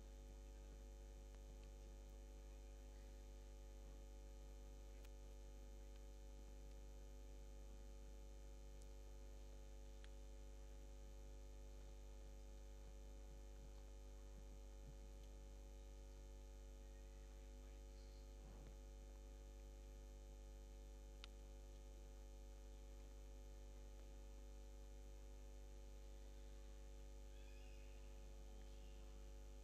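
Near silence: a steady electrical mains hum, with a few faint ticks.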